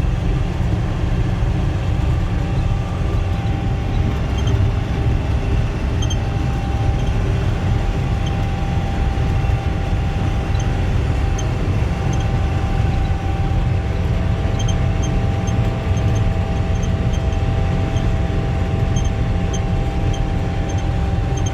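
Self-propelled swather running steadily while cutting wheat: a heavy, even low drone with a steady higher whine over it.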